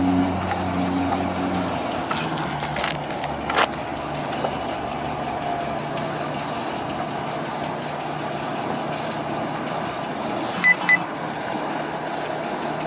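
Steady hum of an idling vehicle engine, with clothing rustling against a body camera and a few short clicks. Two sharp clicks come close together near the end.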